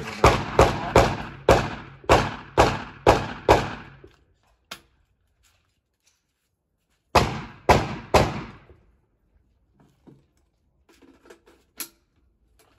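Gunfire at a shooting range: a string of about eight shots roughly two a second, a pause of about three seconds, then three more shots half a second apart. A few faint clicks follow near the end.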